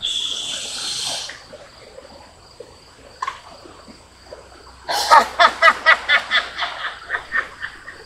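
A drawn-out "shh" hush for about a second, then, about five seconds in, a quick run of staccato laughing "ha"s, about five a second, that fades away.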